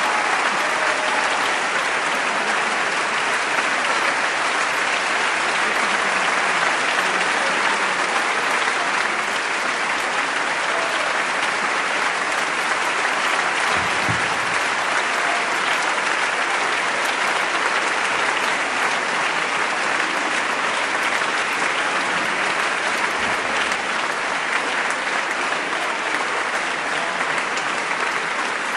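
Concert audience applauding, steady and sustained clapping.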